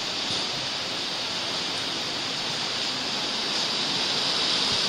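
A steady, even rushing hiss with no distinct events, brightest in the upper treble, growing slowly a little louder.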